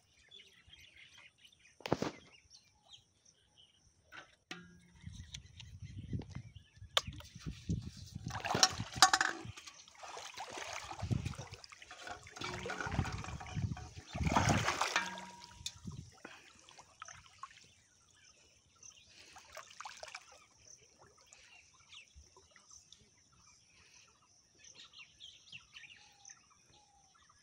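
Splashing and sloshing of shallow water as a person wades and works in it, heaviest in the middle stretch and dying down to faint scattered splashes near the end, with a sharp knock early on. A thin steady high-pitched hum runs underneath.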